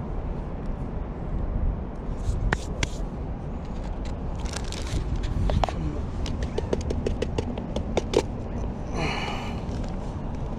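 A plastic bag crinkling and rustling as it is handled, with a dense run of quick crackles in the second half and a short rustle near the end, over a steady low rumble.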